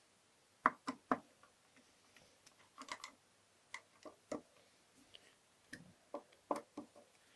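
Irregular light clicks and taps, about a dozen, from tools and small parts being handled on the steel case of a GU multipoint lock during reassembly.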